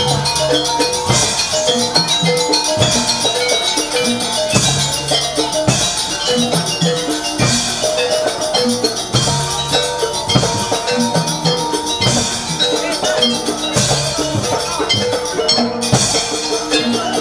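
Live Javanese jaranan gamelan music: pitched gongs and metallophones repeat a short melody over hand-drum strokes, with a splashy cymbal-like crash about every second and a half.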